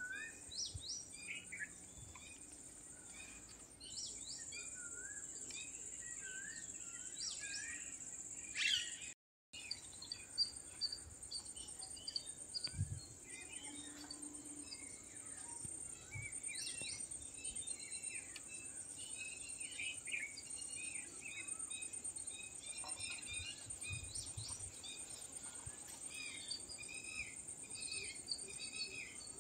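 Many small birds chirping and calling over a steady high-pitched insect drone. The audio drops out briefly about nine seconds in.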